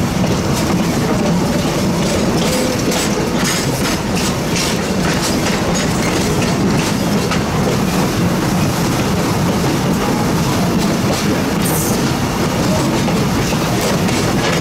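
Excursion train behind Pennsylvania Railroad 643, a 0-6-0 steam locomotive, rolling along the track, heard from the car just behind the tender: a steady rumble of wheels on rail with scattered clicks over the joints.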